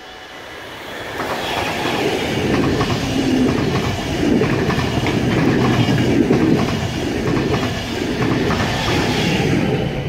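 Locomotive-hauled NS Intercity train, an NS class 186 TRAXX electric locomotive with single-deck carriages, passing at speed. Its rolling wheel noise comes with rapid clickety-clack over the rail joints, swelling about a second in, staying loud as the carriages go by, and falling away at the end.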